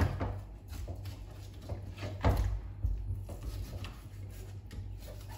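Kitchen knife cutting a fillet off a small fish along its backbone: short scrapes and knocks of the blade and fish against a plastic cutting board, irregular, the loudest at the start and about two seconds in. A low steady hum runs underneath.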